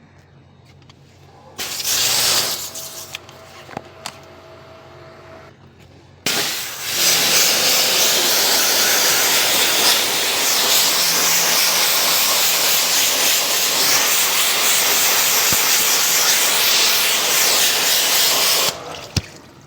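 Loud, steady hiss of a pressurised jet, starting about six seconds in and cutting off sharply near the end, after a short burst about two seconds in.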